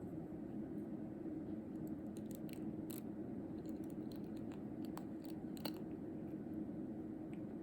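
A cat brush working on a cat: a scatter of small sharp clicks and scratchy ticks from about a second and a half in until about six seconds, over a steady low room hum.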